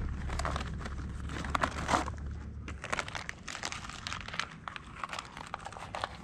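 Crinkling and rustling of something being handled, with scattered irregular clicks and taps. A low steady hum underneath stops about three seconds in.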